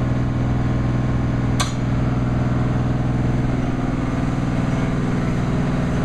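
Engine of heavy drilling equipment running steadily, with one sharp knock about a second and a half in.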